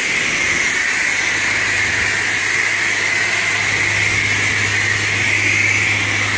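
High-pressure car-wash wand spraying water onto a car's bodywork and wheel: a loud, steady hiss of the jet. A low steady hum joins about a second in.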